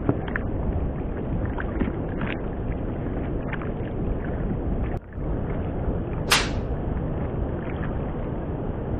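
Steady rush of wind and waves around a small wooden fishing boat at sea, with faint scattered clicks. A short sharp hiss stands out about six seconds in.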